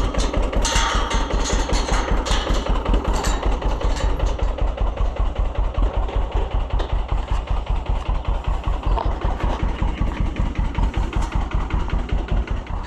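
Tractor engine running at low speed with a steady, rapid chug, and a few metallic clanks in the first three seconds.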